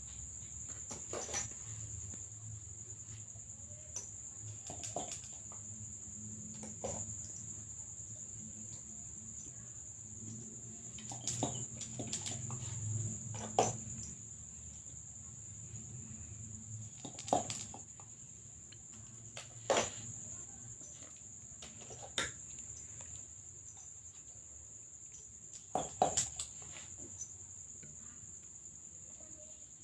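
A steady high-pitched insect drone, with scattered sharp clicks and knocks every few seconds.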